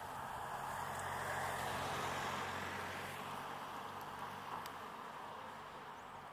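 A road vehicle passing: tyre noise and a low engine hum swell to a peak about two seconds in, then fade away.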